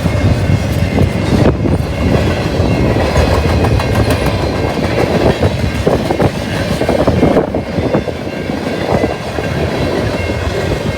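Freight train cars rolling past on the rails, their wheels clattering over the rail joints in a steady, continuous rumble. Wind is buffeting the microphone.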